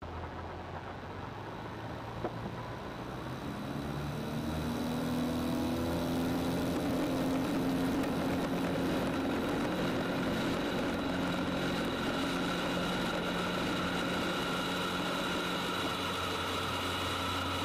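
The ULPower piston engine of a Zenith CH 650 light aircraft running, rising in pitch and getting louder a few seconds in, then holding at a steady higher speed.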